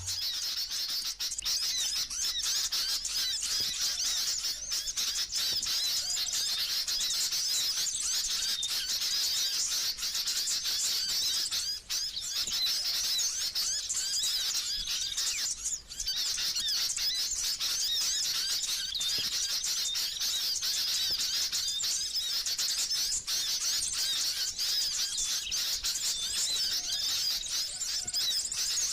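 Songbird singing a fast, unbroken run of high-pitched chirps and twitters, with two brief pauses partway through.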